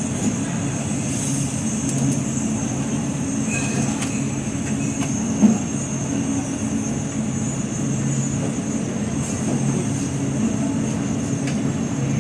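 A steady low mechanical drone with a thin high whine above it, and one short knock about five and a half seconds in.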